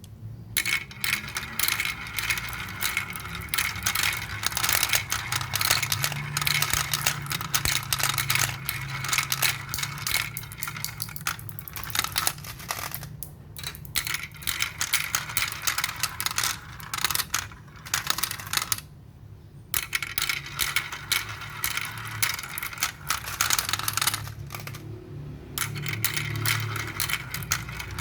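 Marbles rolling and clattering down a marble run track: dense rapid clicking over a low rolling rumble, with brief lulls about 13, 19 and 25 seconds in.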